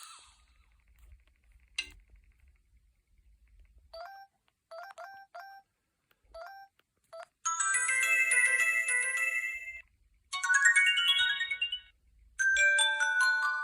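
Preloaded ringtones and alert tones of a Huawei U5310 phone playing through its small speaker: a click, then a run of short single beeps, then three short synthesized melodies of about two seconds each, one after another.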